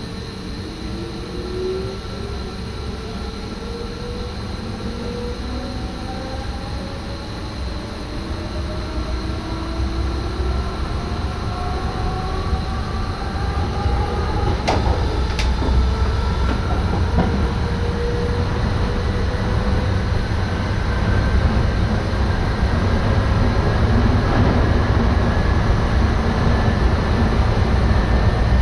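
An NS SGM Sprinter electric multiple unit accelerating, heard from its cab. The electric traction whine climbs steadily in pitch while the rumble of the wheels on the rails grows louder. Two sharp clicks come about halfway through.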